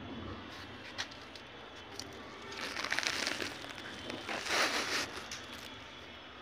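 Tomato leaves and stems rustling and crackling as they brush close against the phone, in two bursts, with a single click about a second in.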